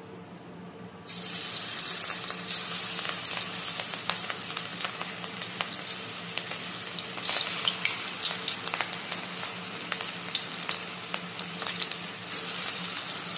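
Batter-coated cabbage pieces deep-frying in hot oil in an aluminium pot, sizzling and crackling. The sizzle starts suddenly about a second in as the first handful hits the oil, and swells again near the end as a second handful goes in.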